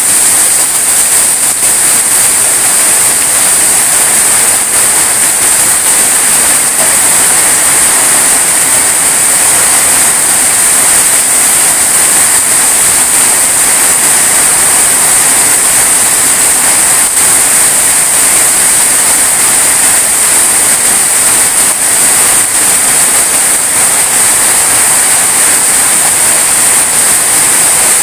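Heavy rain pouring down steadily, a loud even hiss with no letup.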